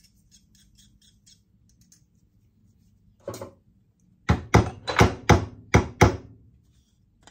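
Faint scratching of a WDT needle tool stirring ground coffee, then a single knock and a quick run of about seven sharp knocks: the espresso portafilter and its dosing cup being tapped on the counter to settle the grounds.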